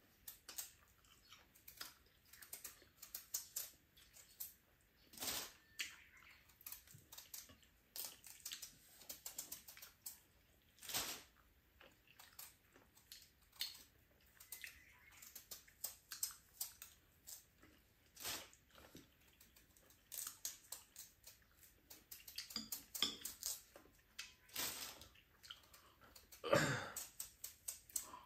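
Quiet eating sounds: chewing and many small, irregular clicks and taps of chopsticks on plates and bowls, with a knife paring a Korean melon.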